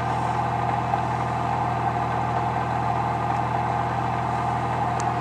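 Bedini SSG pulse motor running steadily, its magnet rotor spinning at speed while the transistor-switched coils pulse: an even hum with a brighter buzz above it.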